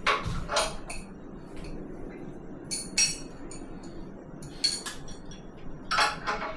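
Metal tools or fittings clinking and knocking against each other, a handful of sharp separate clinks spread over several seconds.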